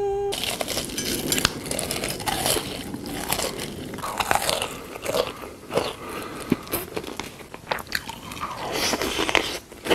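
Close-miked eating: crunchy food being bitten and chewed, with dense crackling crunches. The tail of a short steady electronic tone opens the sound.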